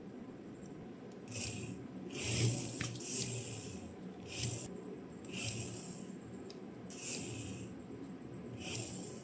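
Repeated rubbing or scraping strokes, roughly one a second, each a short hissy scrape.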